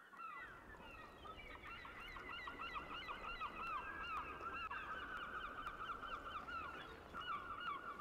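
A flock of waterbirds calling: many short, overlapping calls at once, growing a little louder over the first few seconds, over a low steady rumble.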